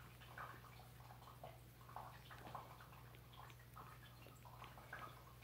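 Faint, irregular little clicks and rustles, a few a second, from a four-week-old kitten chewing and pawing at a person's fingers on a blanket, over a low steady hum.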